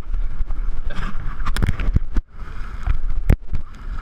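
Jet ski under way on the water: a loud low rumble with irregular sharp knocks, dipping briefly about two seconds in.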